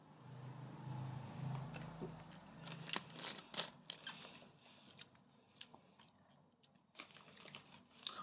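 Someone gulping a soft drink from a plastic bottle, a run of swallows, followed by wet mouth clicks and lip smacks. A few sharp clicks come again near the end.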